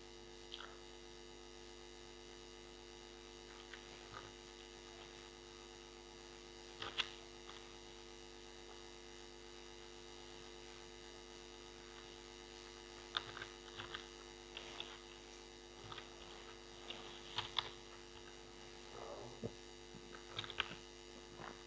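Steady low electrical mains hum in the recording, with a few faint, short clicks of computer keyboard and mouse use scattered through, more of them in the second half.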